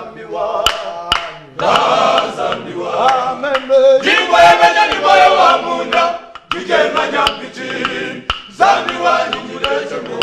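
Male church choir singing a praise song in phrases, with brief breaks between them. Sharp clicks sound now and then along with the singing.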